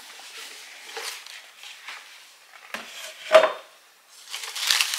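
Cardboard gift box being handled and opened: soft rustling and two knocks, the louder about three seconds in, then paper crinkling starts near the end as the contents are unwrapped.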